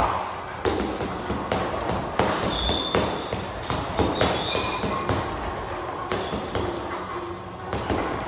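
Boxing gloves punching a hanging heavy bag: a quick, uneven series of thuds, about two to three a second.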